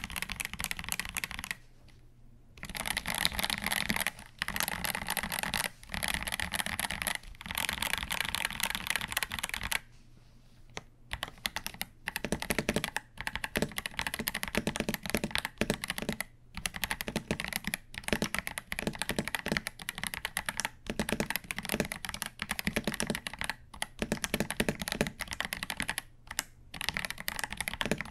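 Typing on a KBD67 Lite mechanical keyboard fitted with YUNZII Milk linear switches, lubed from the factory: a fast run of keystrokes with a short pause about ten seconds in.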